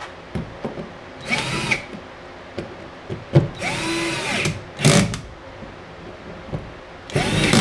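Cordless drill-driver driving #10-24 machine screws into threaded inserts in several short trigger bursts, the motor's pitch rising and falling with each run, with small clicks and handling noises between.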